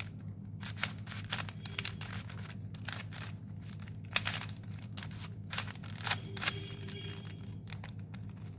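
Plastic 3x3 Rubik's cube being turned by hand during a solve: quick, irregular clicks and clacks of the layers twisting, over a steady low hum.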